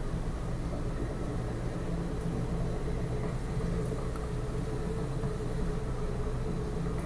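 Steady low engine rumble, like a boat's motor running, with a faint steady whine above it, heard through a TV's speaker.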